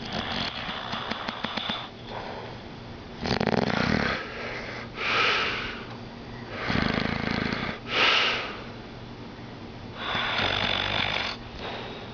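Sleeping man snoring: deep, fluttering snores alternate with airy, hissing breaths, one cycle about every three and a half seconds.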